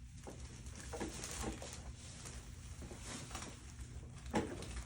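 Soft rustling and a few light knocks of a person shifting on a padded chiropractic knee-chest table, the loudest knock about four seconds in, over a steady low hum.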